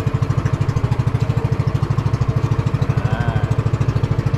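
Small single-cylinder-style boat engine of a motorized bangka running steadily at a constant speed, its firing pulses coming evenly and rapidly.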